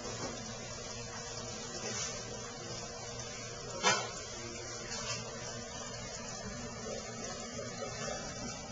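Steady background hiss with one sharp knock about four seconds in and a couple of fainter taps.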